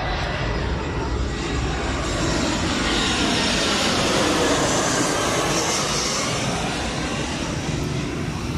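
Jet airliner on approach to land, passing low overhead: a continuous jet engine roar that swells to its loudest about halfway through, with a high hissing whine on top, then eases slightly.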